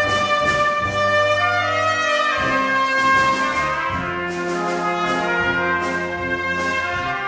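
Brass sextet of two trumpets, horn, trombone, euphonium and tuba with drums, playing a Japanese song in sustained, changing chords over a tuba bass line, with repeated cymbal or drum strokes.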